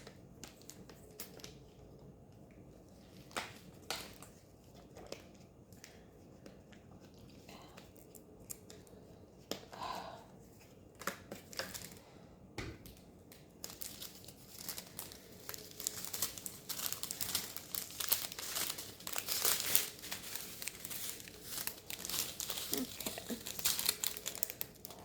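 Plastic packaging crinkling and rustling as it is handled, with sparse clicks and rustles at first, then steadier, denser crinkling through the second half.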